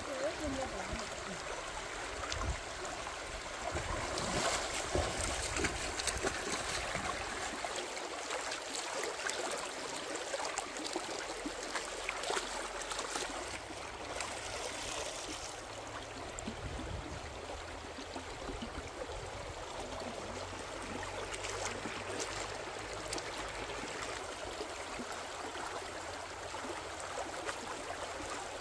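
Shallow rocky stream running over stones: a steady rush of moving water.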